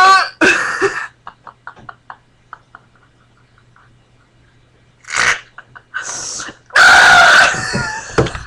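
Belches from young women: a short loud one just after the start, a quiet stretch with a few faint clicks, then more loud belches and vocal noises from about five seconds in, the loudest around seven seconds.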